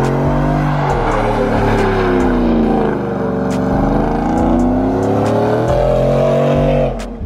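Chevrolet Silverado pickup's engine revving hard as the truck spins donuts in a burnout, its pitch rising and falling again and again. The revs drop off sharply near the end.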